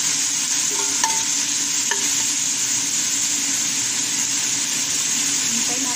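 Chopped onion and garlic sizzling in hot oil in a metal pan as they are sautéed, stirred with a slotted metal turner that clinks against the pan a few times in the first two seconds.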